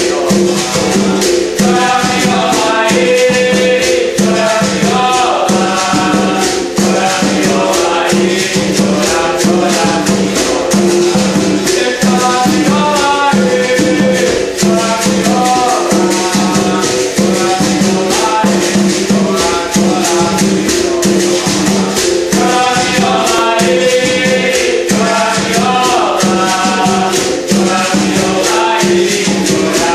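Capoeira music: a berimbau viola twanging between two low notes over the rhythmic rattle of a caxixi and a hand drum, with a man singing a song in phrases that break off and return.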